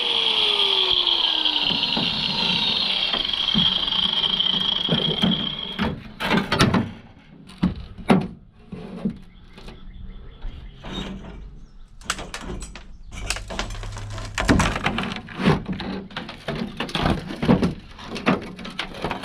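A power tool running with a steady high whine for about six seconds, then stopping, followed by scattered knocks and clanks of metal parts being worked by hand.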